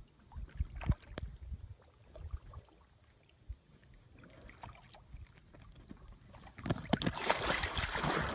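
Scattered low thumps and knocks on an inflatable kayak, then a loud splash about seven seconds in as a dog jumps off the bow into the lake, with churning water as it starts to swim.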